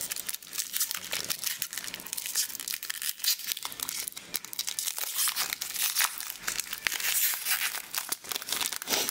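Foil-lined trading card booster pack wrapper crinkling and being torn open by hand, a dense run of crackles.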